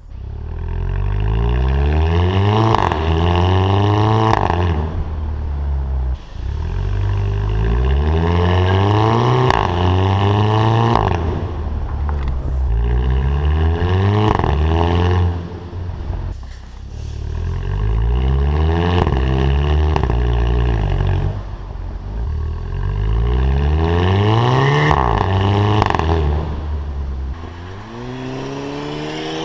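Volkswagen Fusca (Beetle) TSI's turbocharged four-cylinder accelerating hard through the DSG gears several times over. Each run climbs steeply in pitch and drops suddenly at the upshifts, with a short sharp exhaust crack, a DSG 'fart', at each shift.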